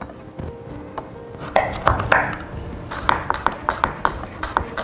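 Chef's knife chopping a red chili on a wooden cutting board, the blade knocking on the wood. A few slower strokes come first, then from about three seconds in a fast, even run of knocks, about six a second.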